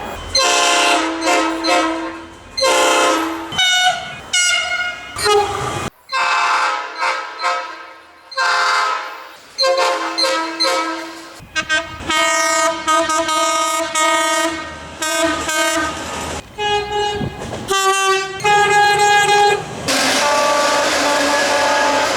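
Australian train horns sounding one after another, in short and long blasts, each a steady pitched tone or chord; the horn changes every few seconds as different trains sound. Near the end the horn sounds over a rushing noise.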